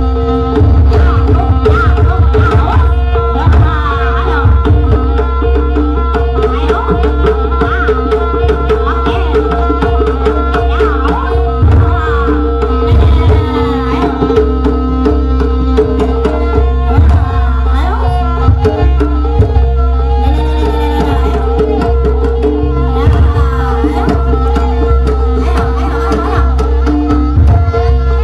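Jaranan dance music from a live gamelan-style ensemble: fast hand-drum (kendang) strokes over a steady held tone, with a wavering melody line above.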